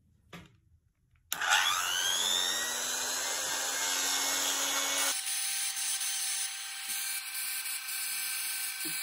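Handheld rotary tool with a small bit switched on, its motor spinning up with a rising whine and then running at steady speed; a little past halfway its note shifts to a different pitch.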